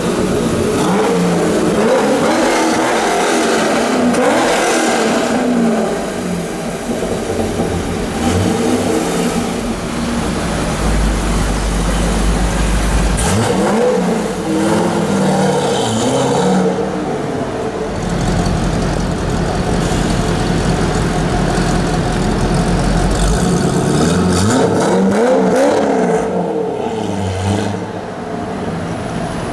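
Modified Chevrolet Corvette drag car's V8 being revved hard in repeated blips: the pitch climbs and drops several times near the start, again around the middle and once more near the end, running more steadily in between.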